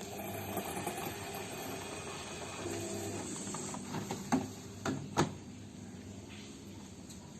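Washing machine running with a steady motor hum, with a few sharp clicks just past the middle.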